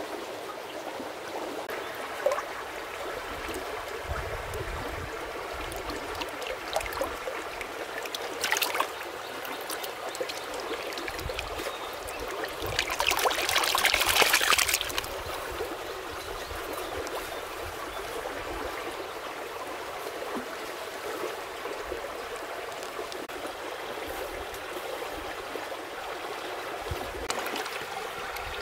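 Shallow stream water trickling and flowing steadily. There is a brief splash about eight seconds in, and a louder rush of splashing and sloshing from about 13 to 15 seconds in, as a large fish pushes into a mud tunnel trap.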